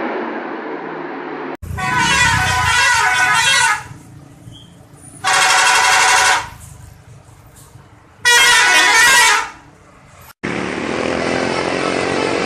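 Bus 'telolet' multi-tone musical air horn sounding three separate blasts, each a warbling run of notes lasting one to two seconds. A steady rushing noise comes before the first blast and again near the end.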